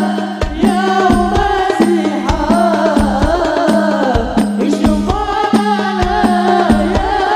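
Live sholawat, an Islamic devotional song: a voice sings a wavering Arabic melody over a regular beat of hand-drum strokes and a repeated low bass note.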